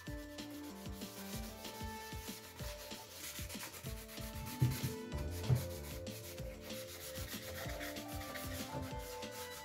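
Hand sanding of a chrome-plated Suzuki Grand Vitara tail light housing with a sanding sponge: rapid, scratchy back-and-forth rubbing strokes. There are two louder knocks near the middle.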